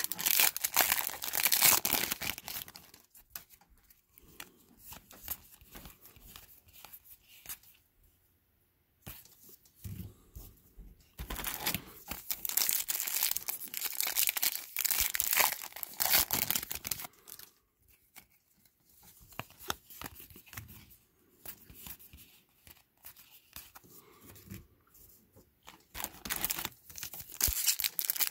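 Foil trading-card packs being torn open and crinkled, in loud spells at the start, through the middle and near the end, with quieter handling and shuffling of the cards in between.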